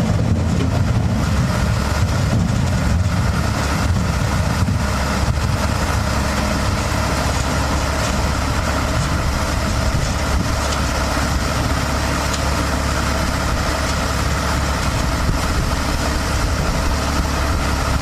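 Heavy engine running steadily with a deep, even drone.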